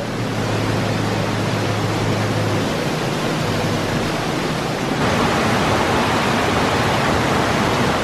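Rushing water at the water-powered mill, a steady hiss that grows louder and brighter about five seconds in. A low hum can be heard under it for the first couple of seconds.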